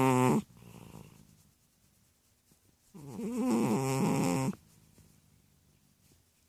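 Chubby cat snoring in its sleep: the end of one snore at the start, a soft breath, then one long pitched snore about three seconds in, lasting about a second and a half.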